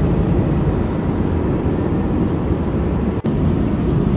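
Steady jet airliner cabin noise: a low rumble of engines and rushing air, with a brief drop-out about three seconds in.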